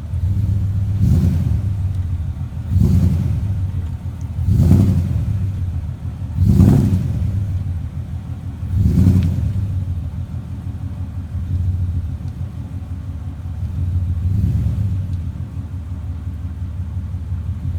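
Lifted Toyota Tundra pickup's engine rumbling low as the truck inches down a steep ledge, with about five short throttle swells in the first ten seconds and a softer one near the end.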